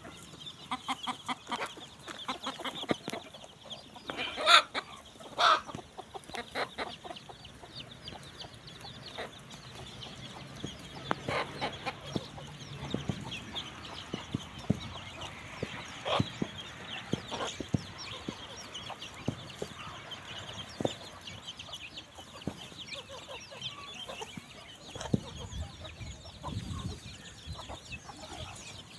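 Chickens clucking in a scattered series of short calls, with two louder calls about four and five seconds in.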